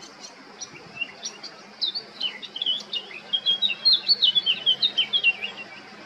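Male Eurasian blackcap singing: a few soft, scattered notes that build in the second half into a loud, rapid warbling run, which ends shortly before the close.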